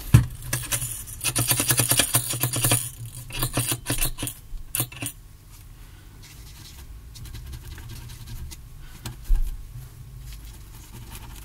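Handling noise on a workbench: a quick run of clicks and scraping for the first few seconds, then only scattered small taps and one low thud late on, over a faint steady hum.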